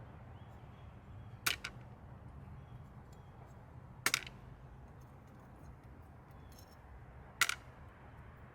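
Three sharp clicks a few seconds apart as small metal carburetor parts are handled and set down, over a faint low steady hum.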